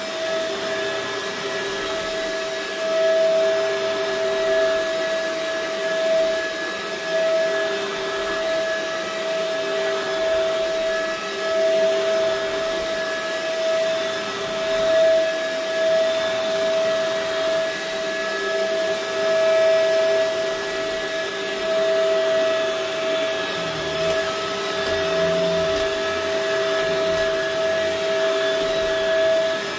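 Shark upright vacuum cleaner running steadily with a high motor whine and a rushing hiss of air. It is pushed back and forth over an area rug, and its level rises and falls a little with each stroke.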